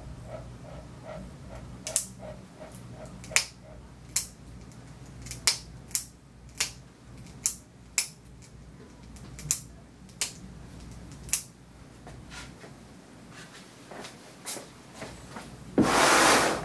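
A hand grooming tool snipping at a small dog's feet: a series of sharp, irregular snips, about one a second. Near the end comes a short, loud rush of hiss, under a second long.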